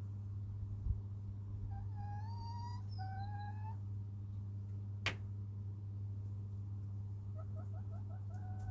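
Domestic hen calling: two drawn-out, slightly rising calls, then near the end a quick run of five short clucks ending in a longer note. A low thump about a second in and a sharp click about five seconds in, over a steady low hum.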